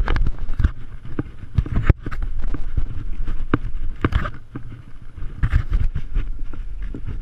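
Horse hooves thudding unevenly on a dry dirt trail, heard from the saddle, with knocks and rattles of the rider's gear and wind rumble on the camera microphone.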